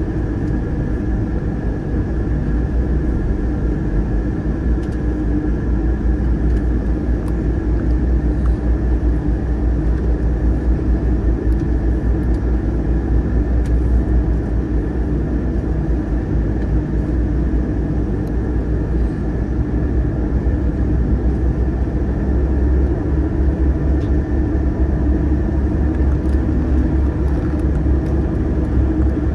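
A passenger ferry's engines droning steadily under way, a deep rumble with a steady hum above it, mixed with the rush of water churned up in the wake.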